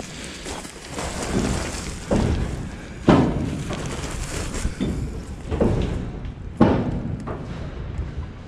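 Footsteps through dry leaf litter and brush on a slope, an uneven series of thumps roughly every half second to a second.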